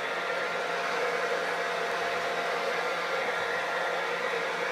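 Handheld blow dryer running steadily: an even rushing of air with a faint motor hum.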